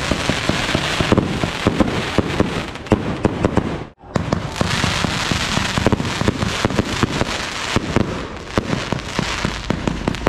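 Fireworks going off in a dense barrage of rapid bangs and crackle. It breaks off suddenly about four seconds in, then carries on just as thick.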